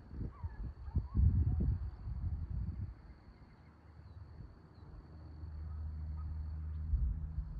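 Wind buffeting the microphone, then the steady drone of a Piper Cherokee's engine in the distance, growing louder in the second half as the plane comes nearer. Faint bird chirps over it.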